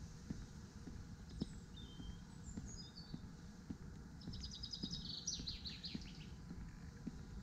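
Footsteps of someone walking at about two steps a second, over a low rumble. A small songbird gives a few short falling notes, then a fast trill about halfway through.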